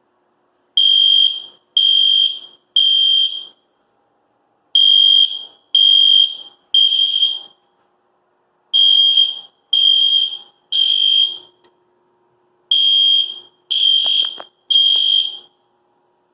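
Fire alarm sounding a high-pitched, ear-piercing tone in the temporal-three evacuation pattern: four rounds of three beeps with a pause between rounds. It has just been set off by a test fire of a smoke detector from the control panel.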